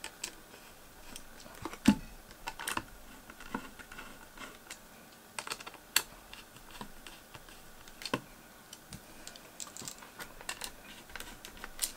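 Small screwdriver and screws clicking and tapping against a graphics card's metal backplate while the screws are being started, with scattered light clicks and sharper taps about 2, 6 and 8 seconds in and near the end. The screws are not catching because the block sits slightly misaligned.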